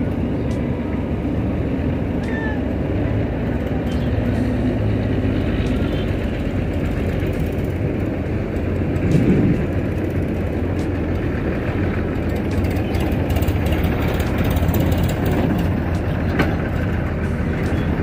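Tractor and excavator diesel engines running steadily, with a brief louder surge about nine seconds in and a sharp clank near the end.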